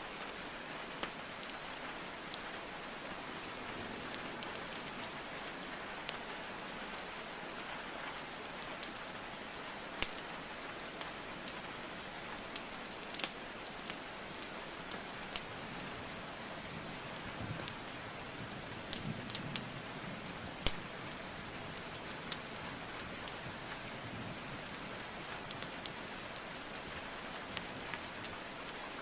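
Steady rain hiss with scattered sharp crackles and pops from burning logs in a fireplace, a small flurry of pops about two-thirds of the way through.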